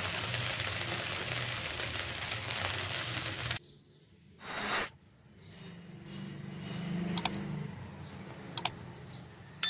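Oil sizzling steadily in a pan, cut off abruptly after about three and a half seconds. Then a short hiss, a faint low hum and a few sharp clicks.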